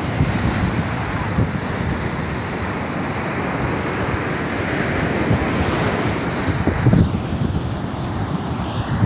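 Ocean surf washing onto a sand beach, mixed with wind buffeting the microphone in a low, gusting rumble that swells briefly about seven seconds in.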